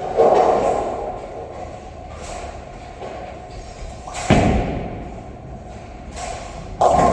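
Bowling ball landing on the lane with a thud, rolling, then crashing into the pins about four seconds later with a loud clatter that rings on in the reverberant hall. Another loud clatter near the end.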